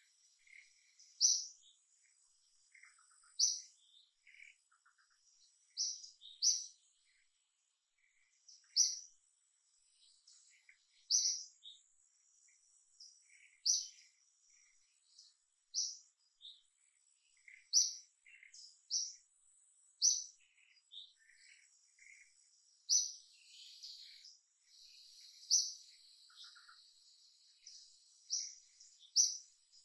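A bird chirping: a short high note repeated roughly every two seconds, with a denser run of chirps just past the middle. A faint steady high-pitched insect drone runs underneath.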